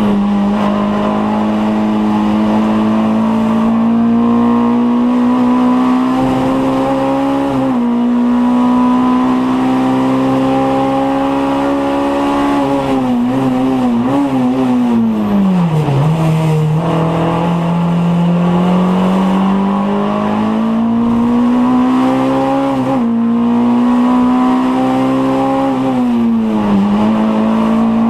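Mk2 Scirocco 16v race car's 16-valve four-cylinder engine under hard acceleration, heard from inside the cabin. The note climbs steadily and drops sharply at upshifts about 8 s and 23 s in; around the middle it falls steeply with a few short wavers as the car slows for a corner, then climbs again.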